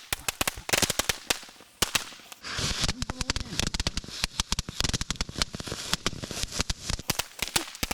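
Novelty firework tanks going off on the ground: rapid, irregular strings of sharp firecracker pops, with stretches of spark hiss in between.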